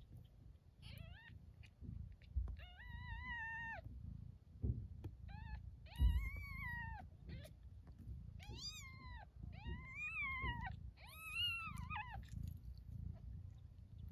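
Newborn kittens mewing: a series of about seven high, drawn-out mews, each rising then falling in pitch, over low rustling and bumping in the nest.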